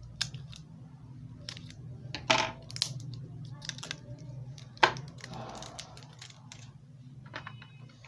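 AA batteries clinking in a hand and a small plastic toy washing machine being handled and turned over on a hard table: a series of sharp clicks and knocks, with a short rustle a little past the middle.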